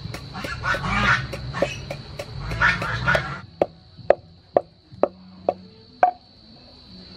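Wooden pestle pounding dried pepper in a large wooden mortar: about six dull knocks, two a second, heard plainly in the second half. In the first half, louder noisy sounds and background music cover the pounding.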